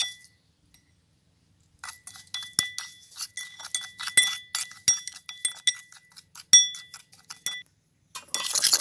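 Metal spoon clinking and scraping against a ceramic bowl as chilli-salt-lime dipping sauce is stirred and mashed, the bowl ringing briefly after each quick tap. There is a single clink at the start, then a run of rapid taps, then a denser scraping near the end.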